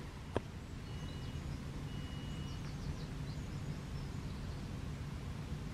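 Morning birdsong: two long, steady whistled notes followed by a run of quick high chirps, over a low steady background rumble. A single sharp click comes about half a second in.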